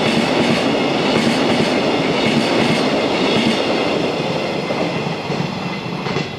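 Freight train of empty container flat wagons (Koki type) rolling past, wheels running on the rails. The last wagon goes by about four seconds in, and the sound then fades away.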